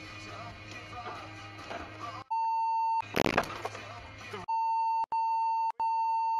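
Faint background sound, then an edited-in censor bleep: a steady high tone that blanks out all other audio. It sounds once for under a second, then a short loud burst of noise, then the tone again in three back-to-back bleeps separated by brief drop-outs.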